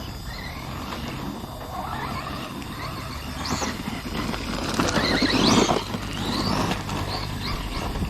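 Electric RC car being driven hard: the motor and gearing whine rises and falls with each burst of throttle, loudest about five and a half seconds in, over the rough noise of the tyres and drivetrain. Its spur gear is 3D-printed ASA, being run to see whether it holds up.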